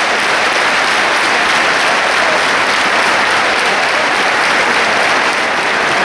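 Arena crowd applauding steadily.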